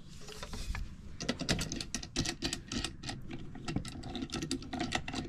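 Rapid, irregular clicks and taps from about a second in, as the aluminium arms of a Thule Elite G2 bike rack are handled and fitted into their plastic wall mounts.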